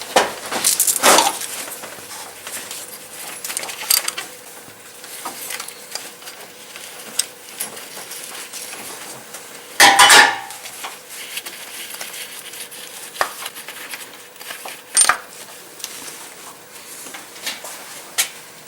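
3/8-inch ratchet with a T50 Torx bit clicking and metal parts clinking as the idler pulley bolt is spun out, with a louder metallic clatter about ten seconds in.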